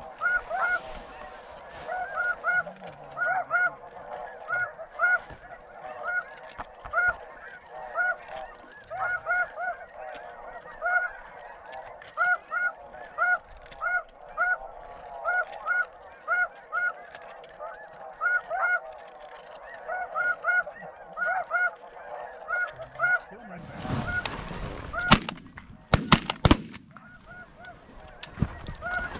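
Snow goose calls: a steady stream of high, evenly repeated honks. Near the end, several shotgun shots come in quick succession.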